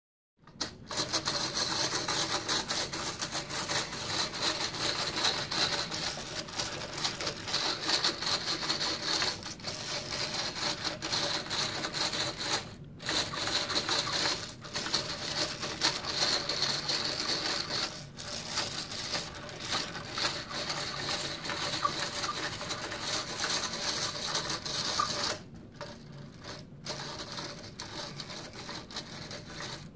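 Hand-cranked 3D-printed plastic ball screw running: the metal balls click and clatter steadily through the printed nut as it travels along the screw. The clatter breaks off briefly twice, about 13 and 18 seconds in, and turns quieter for the last few seconds.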